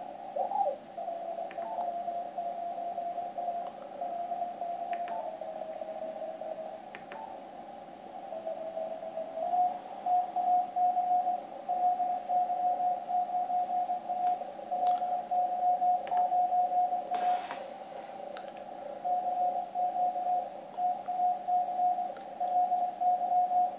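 Morse code (CW) signal heard through a Yaesu FTdx1200 HF transceiver on the 80 m band, a keyed tone over band hiss. Its pitch shifts in steps as the receiver is tuned onto the signal, then holds steady from about nine seconds in, with clear dots and dashes.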